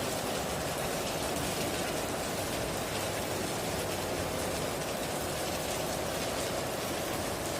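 Heavy rain drumming steadily on a tin roof: a dense, even patter of drops with no thunder in it.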